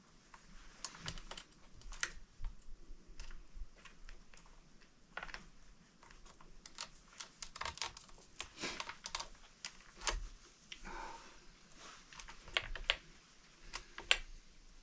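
Chainsaw chain clicking and rattling against the guide bar as it is worked around the bar by hand: a long run of irregular, sharp little metal clicks.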